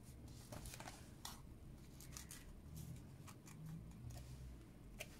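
Faint rustling and light clicks of small cardstock pieces being handled and pressed between fingers, scattered irregularly.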